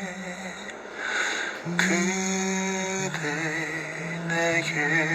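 A man singing a slow Korean ballad, holding long notes. The notes waver in a slow vibrato in the second half, and the word 그대 comes near the end.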